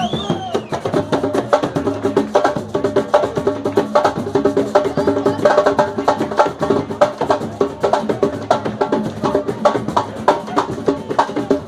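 Batucada percussion ensemble playing a fast, driving samba rhythm: dense, sharp strikes many times a second over pitched drum tones, keeping an even groove throughout.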